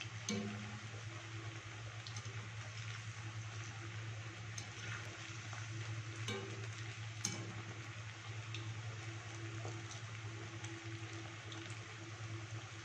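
Cornflour-and-maida-battered cauliflower florets sizzling steadily as they deep-fry in hot oil in a metal kadai, with a few light clicks of a wire spider skimmer against the pan and a steady low hum underneath.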